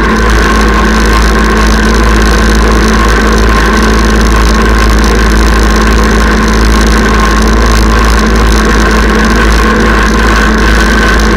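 Kubota tractor's diesel engine running at a steady speed while pulling a chain harrow over grass. A heavy low rumble lies under it, with a steady high whine on top.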